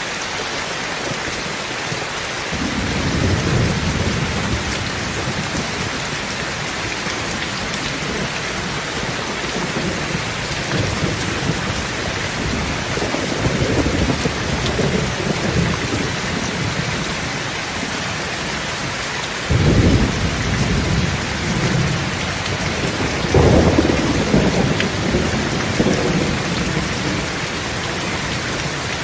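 Thunderstorm: steady rain hissing throughout, with low rolling thunder that swells in several times. The first rumble starts about two and a half seconds in, and the thunder comes in suddenly about two-thirds of the way through, then swells again shortly after.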